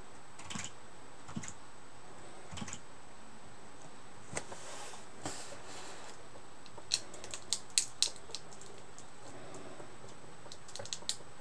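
Irregular clicks and taps of computer keyboard keys, in small clusters, busiest about seven to eight seconds in and again near the end, over a faint steady high whine.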